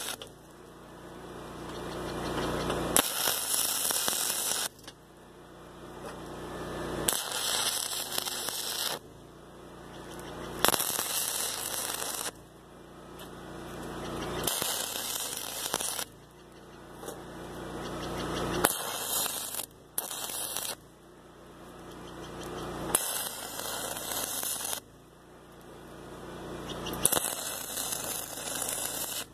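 Stick-welding arc crackling in short bursts of a second or two, about seven welds a few seconds apart, as the electrode is struck, run briefly and broken off. A low hum fills the gaps between welds.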